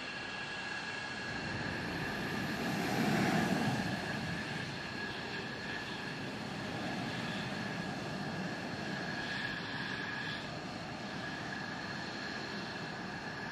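Fighter jet engines running at ground idle on a flight line, a steady high whine over a constant rumble. The rumble swells louder for about a second, about three seconds in.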